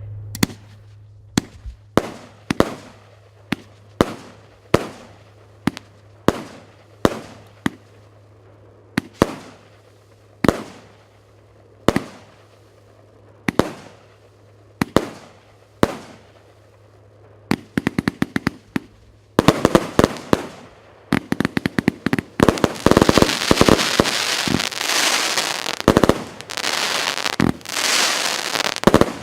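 Piroff 'Minotaur' fan-pattern fireworks cake firing: single shots, each with a fading tail, come roughly every second for the first 17 seconds. Then the shots speed up into a dense, continuous crackling barrage for the last ten seconds, the cake's finale.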